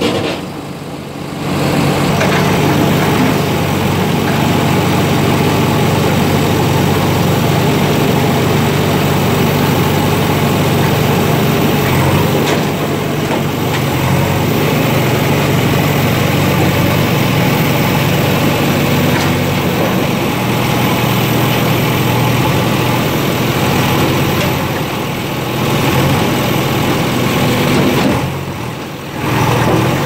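JCB backhoe loader diesel engines idling steadily, the sound briefly dropping away about a second in and again near the end.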